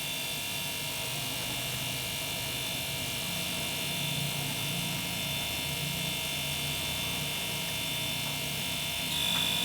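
Refrigerator/freezer hermetic compressor running on its own with a steady hum, freshly filled with about 300 ml of oil and left running to lubricate the piston.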